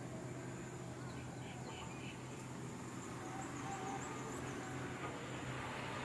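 Steady background ambience: an even hiss with a low hum, and a few faint, short high chirps about a second and a half in and again around four seconds.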